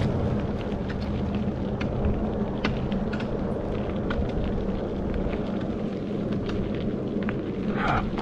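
Wind buffeting the microphone in a steady low rumble, with a faint steady hum and scattered small clicks of bicycle tyres on a dirt road during a slow uphill climb.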